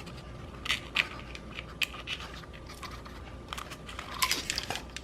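Hands handling small plastic parts and packaging of a toy mini drone: light rustling with scattered sharp plastic clicks and taps, a few more of them close together near the end.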